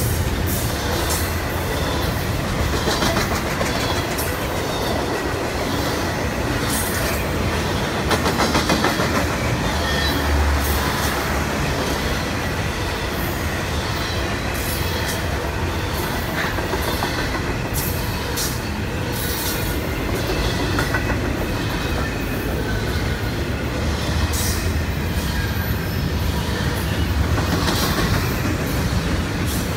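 Double-stack intermodal container well cars of a long freight train rolling steadily past close by, with a continuous rumble and the clickety-clack of wheels over rail joints.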